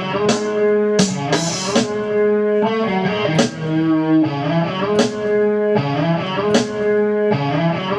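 Instrumental beat: sustained guitar chords over drums, with cymbal hits every second or so.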